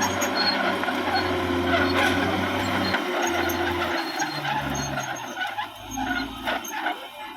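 Caterpillar D6R XL bulldozer's diesel engine running under varying load, its note shifting every second or so and dropping lower and softer for the last couple of seconds.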